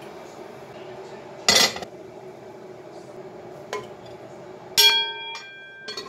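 Kitchenware being handled at a stove: a sharp clatter about a second and a half in, then a louder clink near the end that rings briefly like struck metal or enamel. A steady low hum runs underneath.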